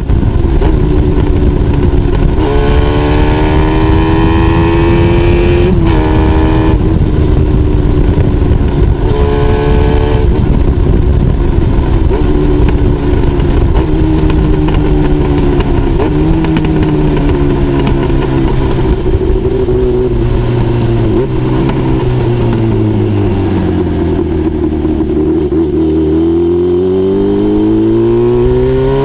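Honda CBX550F's air-cooled inline-four running through a homemade silencer, revving up hard and shifting up three times in the first ten seconds. It then holds a steady pace, the revs fall away, and it picks up speed again near the end.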